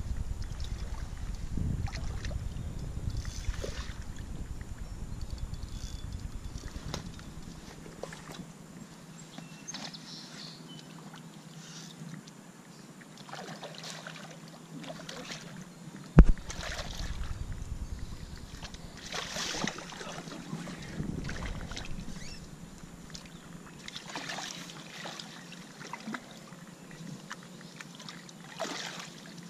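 Hooked channel catfish thrashing and splashing at the surface near the bank during the fight: a series of short splashes, with wind rumble on the microphone in the first several seconds. A single sharp knock about 16 seconds in is the loudest sound.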